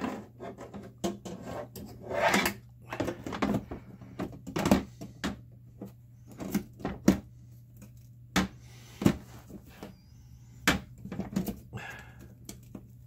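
Irregular clicks, taps and short scrapes of metal parts and screws being handled while an oven door's sheet-metal hinge assembly is worked on, over a steady low hum.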